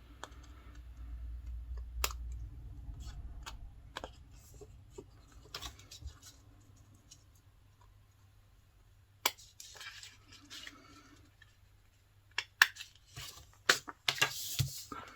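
Small craft scissors snipping, trimming fine details from paper or a sticker, in a few scattered snips with handling sounds between them.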